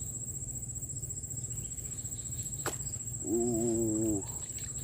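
Crickets trilling steadily in a high pulsing drone over a low hum. A single sharp click comes about two and a half seconds in, followed by a short hummed "uh" from a person.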